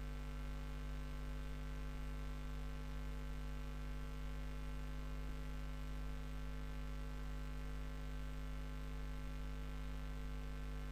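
Steady low electrical hum with a series of higher overtones, like mains hum picked up on the recording.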